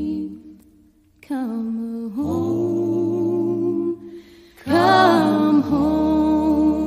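A slow hymn played as music, in long held notes with vibrato over a low bass. The music drops almost to silence about a second in and dips again around four seconds in between phrases.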